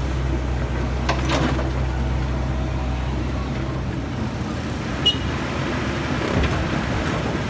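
A large vehicle's engine running with a steady low drone that drops away about four seconds in, over general road traffic noise.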